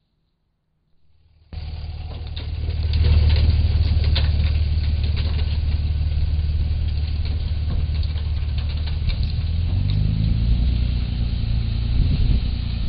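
Small dump truck's engine running as the truck drives off, heard through a trail camera's microphone. It starts suddenly about a second and a half in, and its pitch rises about ten seconds in as the engine picks up speed.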